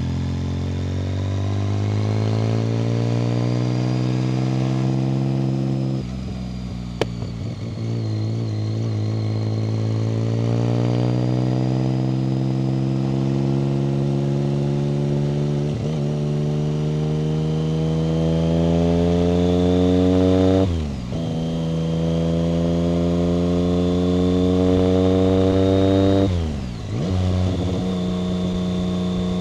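1990 BMW K75's three-cylinder engine accelerating up through the gears, the revs climbing steadily and dropping sharply at each upshift, three times in the second half. Early on the revs fall away for a few seconds, with a single click, before building again. A faint high whine rises and falls with the engine speed.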